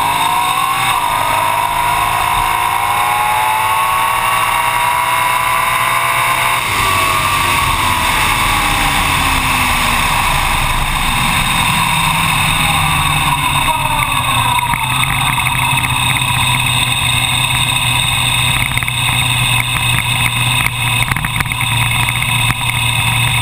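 Dragster engine at full throttle on a quarter-mile pass, its pitch climbing steadily for about six and a half seconds. The engine is then shut off and the pitch falls away as the car coasts with a loud rush of wind. In the later part the engine runs at a steady low idle while the car rolls slowly.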